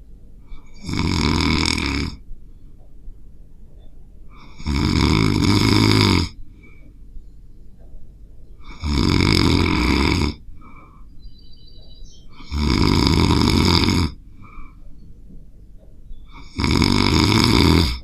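A sleeping person snoring heavily: five loud, rasping inhaled snores, each about a second and a half long and spaced roughly four seconds apart, in a steady breathing rhythm.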